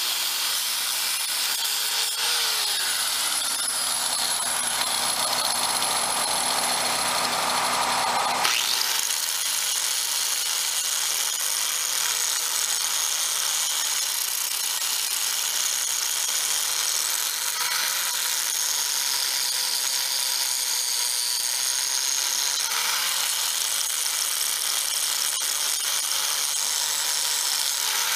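Hand-held electric grinder running against a steel rail, grinding the rail to bare metal for a welded rail bond; the sound is steady, with a shift in tone about eight seconds in.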